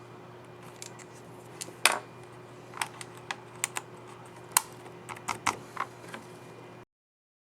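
Dell Precision 15 3551 laptop keycap on its scissor mechanism clicking: about a dozen sharp, irregular clicks over a steady low hum. The sound cuts off suddenly near the end.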